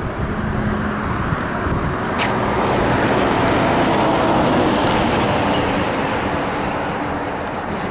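Road traffic noise: a vehicle passing, its rushing sound swelling toward the middle and fading again, with one faint sharp crack about two seconds in.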